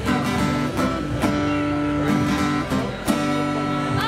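Live acoustic guitar music: strummed chords played steadily.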